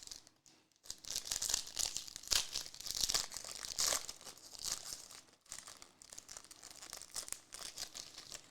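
Foil trading card pack wrappers crinkling and tearing as packs are ripped open and handled, a dense crackle with a short lull about five and a half seconds in.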